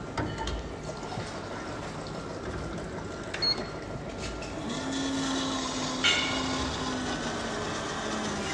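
Nescafé Alegria drinks vending machine dispensing into a mug. After a click, its pump starts a steady hum about halfway through, with the drink pouring into the cup.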